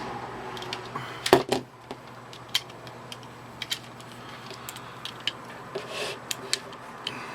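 Swiss Army knives being handled: scattered small metallic clicks and taps, with a louder clatter of several clicks about a second and a half in.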